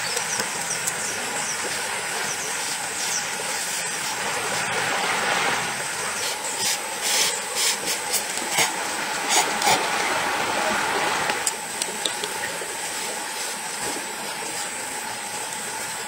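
Noodles being eaten with chopsticks from a metal camping pot: short slurps and clicks of the chopsticks against the pot, clustered between about six and ten seconds in. Behind them runs a steady outdoor background hiss.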